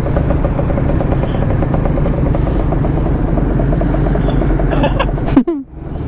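Motorcycle engine idling steadily while stopped. About five seconds in, a sharp knock is followed by a brief muffled drop in sound, as a gloved hand brushes over the camera.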